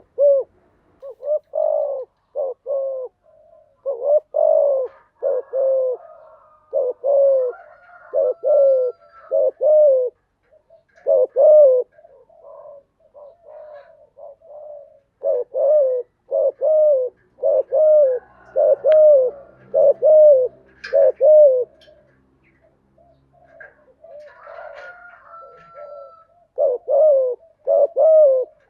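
Spotted dove cooing: its song of short, repeated coos delivered in phrases with brief pauses between them. A fainter, higher bird chirp sounds in the second half.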